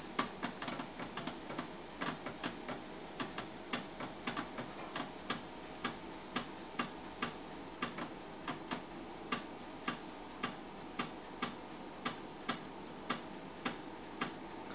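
Computer hard drive clicking as it seeks during a file copy. The clicks come in a quick irregular flurry for the first few seconds, then settle into an even run of about two a second, over a faint steady hum of the machine.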